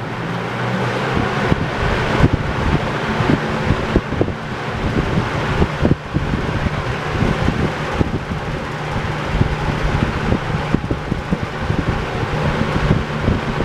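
Toastmaster model 4437 box fan running on its stand, a motor hum under the rush of air from the blades, building up over the first couple of seconds as it comes up to speed. The moving air buffets the microphone with frequent thumps.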